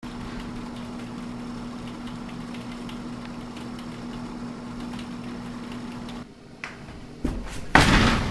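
Steady room hum with faint clicks of computer keyboard typing. It cuts off about six seconds in, followed by a thump and then a loud bang near the end.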